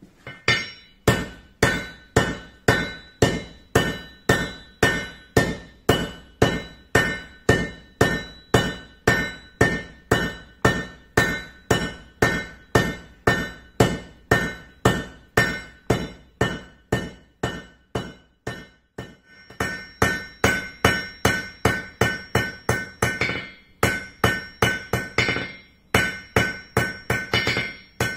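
Hand hammer forging a red-hot steel bar on an anvil: steady blows about two a second, each with a bright metallic ring. After about 19 s the blows come quicker, in runs.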